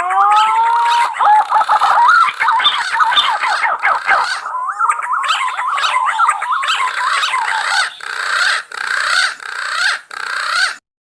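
Green pigeons (punai) calling: many fast, overlapping whistled notes that slide up and down around one pitch band, a warbling, gurgling chorus used as a lure call. The calls cut off abruptly just before the end.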